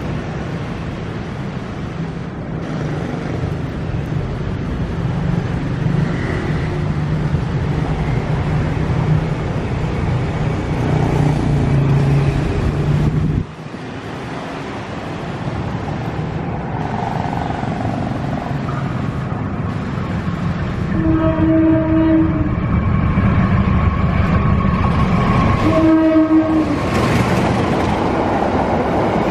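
Indonesian diesel locomotive approaching with a passenger train, its engine running with a steady low drone that cuts off abruptly about halfway through. It sounds a multi-tone horn twice, a longer blast and then a short one, and near the end the carriages roll past close by.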